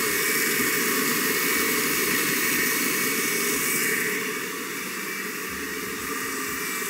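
750-watt electric kitchen blender running steadily, puréeing cooked corn kernels and their cooking liquid into a thick cream. It gets a little quieter about four seconds in.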